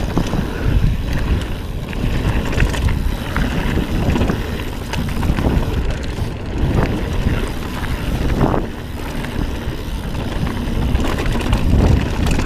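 Wind buffeting the microphone over the rumble of a mountain bike's tyres on a dirt singletrack, with scattered clicks and rattles from the bike over rough ground.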